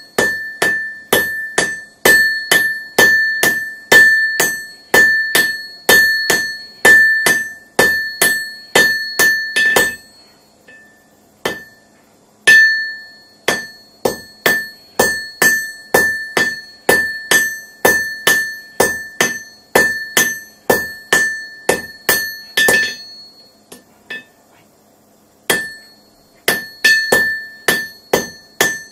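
Hammers striking hot iron on a blacksmith's anvil at a steady rhythm of about two blows a second, each blow ringing with a high metallic ping. The hammering stops for a couple of seconds twice, about ten seconds in and again about twenty-three seconds in.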